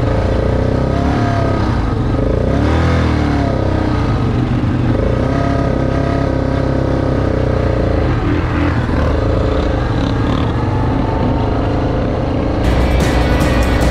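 700 cc quad bike engine running and revving as it is ridden over sand dunes, its pitch rising and falling. About a second before the end the sound changes abruptly and music comes in.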